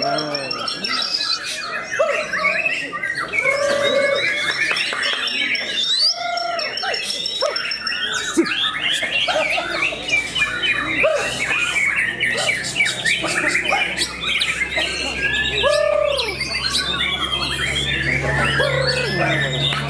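Many caged white-rumped shamas (murai batu) singing over one another: a dense tangle of fast overlapping whistles and chirps, with a few lower swooping notes. A low steady hum comes in during the second half.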